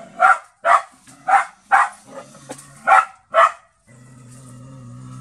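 Dog barking six times in quick pairs. A steady low hum follows near the end.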